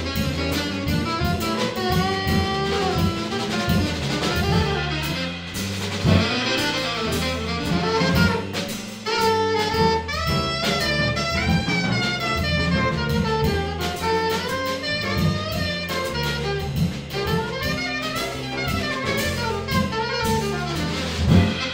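Jazz quartet playing live: an alto saxophone leads with quick runs of notes over grand piano, electric bass guitar and a drum kit with busy cymbal work.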